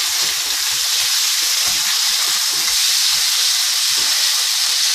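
Chicken strips frying in hot oil in a pan, a steady loud sizzle, with short irregular scrapes and taps from a spatula stirring them.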